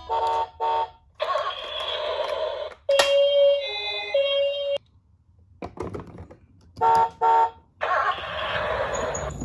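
A toy ambulance's electronic siren sound playing a repeating pattern. It goes: two short beeps, a rough buzzy stretch, then a steady tone that drops lower once and returns. After a short pause with a few clicks, the pattern begins again about two-thirds of the way in.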